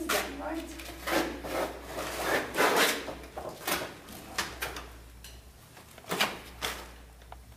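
A series of irregular rough scraping and rubbing noises as a painting on a wooden stretcher is handled.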